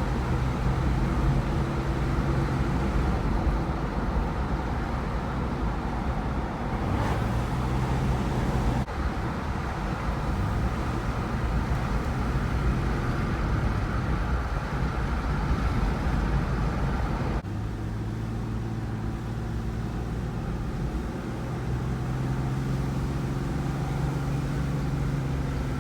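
Car driving, heard from inside the cabin: steady road and tyre noise under a low engine drone. The sound shifts abruptly twice, about a third and two thirds of the way through.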